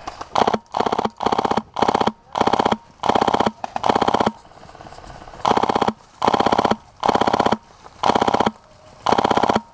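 HPA-powered airsoft rifle (a PolarStar Fusion Engine in an MC51/G3 body) firing about a dozen short full-auto bursts of rapid shots, with a pause of about a second near the middle.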